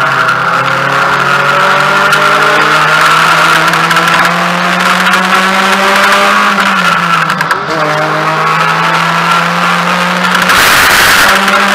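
Mazda MX-5 race car's four-cylinder engine running hard, heard from inside the cockpit. Its pitch climbs slowly through the first six seconds and dips briefly about seven seconds in. A short burst of rushing noise comes near the end, after which the engine sits at a higher pitch.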